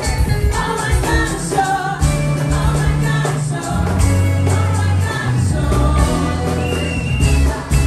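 Live Afropop band playing through the stage PA, with a woman singing lead into a handheld microphone over heavy bass notes, electric guitar and drums.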